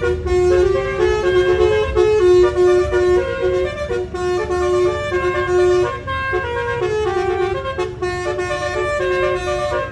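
Bus telolet horn, a multi-tone musical air horn, playing a tune in quick stepped notes over the low running of the bus engine.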